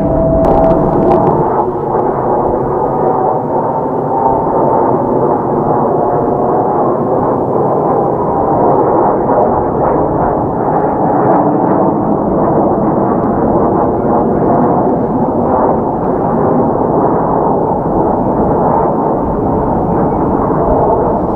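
Six Kawasaki T-4 jet trainers flying overhead in formation: a loud, steady rush of jet engine noise, with a faint whine that dies out about a second in.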